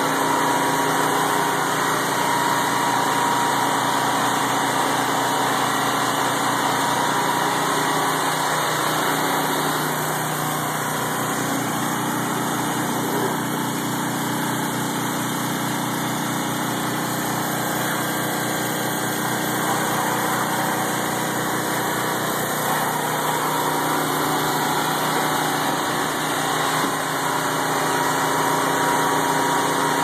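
A motor running steadily, a dense, unchanging mechanical hum.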